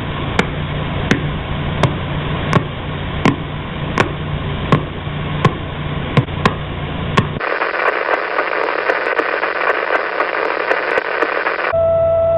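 Radio static hiss with sharp clicks about every three-quarters of a second, a space signal converted to sound. About 7.5 s in it switches to a thinner, brighter hiss, and near the end a steady tone comes in over a low hum.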